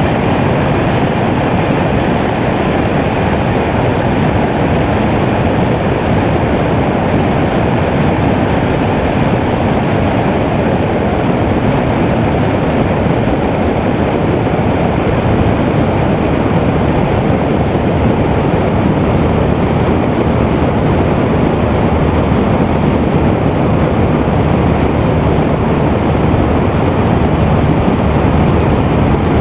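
Cessna 182 single-engine light aircraft in flight: a loud, steady engine and propeller drone that does not change.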